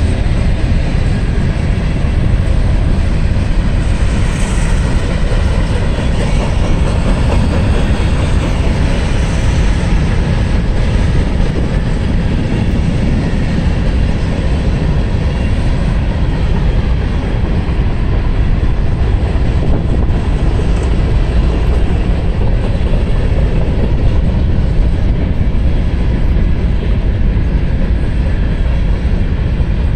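Freight train of covered hopper cars rolling past, a loud, steady sound of steel wheels running on the rails that keeps up without a break.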